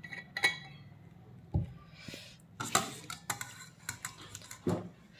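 Steel ladle clinking and scraping against a stainless steel pot while scooping up curry, with several sharp metal clinks spread through.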